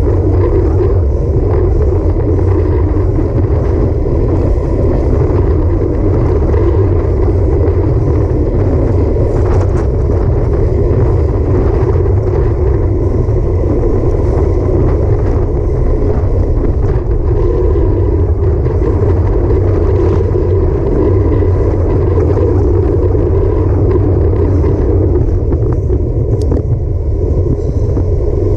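Steady wind rush and buffeting on the microphone of a bike-mounted action camera, riding at around 24 mph, with road and tyre rumble underneath.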